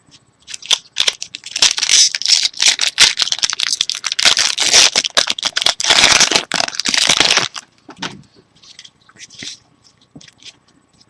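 Foil wrapper of a Bowman Chrome football card pack being torn open and crinkled: a dense crackling run lasting about seven seconds, then a few faint scattered rustles.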